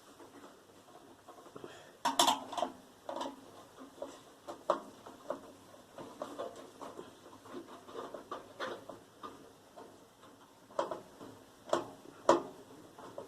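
Irregular clicks, taps and clatter of a screwdriver and loose metal and plastic parts as a microwave oven is dismantled, with sharper knocks about two seconds in and twice near the end.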